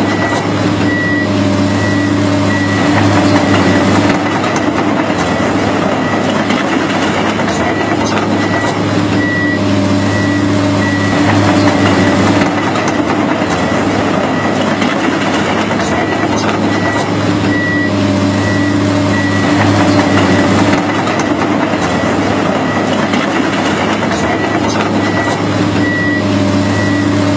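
Komatsu PC210LC crawler excavator travelling on its tracks: the diesel engine runs steadily under the regularly repeating high beep of its travel alarm.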